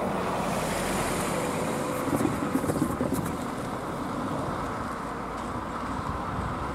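A car drives over the level crossing and away, its tyres clattering over the rails about two to three seconds in, then its running fades.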